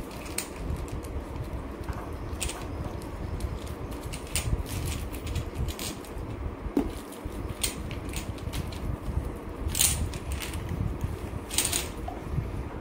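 Handling noise of a coiled metal-braided pressure-washer hose being untied and uncoiled: scattered light clicks and rustles, louder twice near the end, over a steady low rumble.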